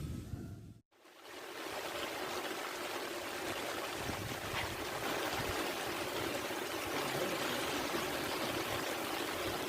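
Steady hiss of rain falling on the reservoir's surface. It fades in just after a brief silent cut about a second in, then holds even.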